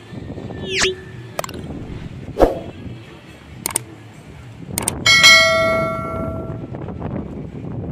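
Subscribe-button overlay sound effect: a quick swooping glide, a few sharp mouse clicks, then a notification bell that rings out and fades over about a second and a half.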